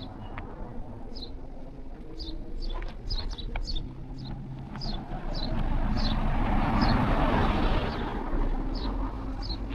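A small bird calling over and over with short, high, down-slurred chirps, about two a second. A car passes, its tyre and engine noise swelling to loudest about seven seconds in and then fading.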